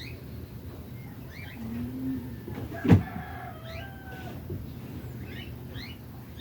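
A single short, sharp sneeze about three seconds in, with faint high chirps scattered in the background.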